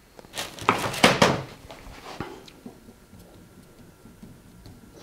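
A screwdriver being picked up from a tool shelf: a short clatter of a few sharp knocks, loudest about a second in, with one small click after it, then near quiet.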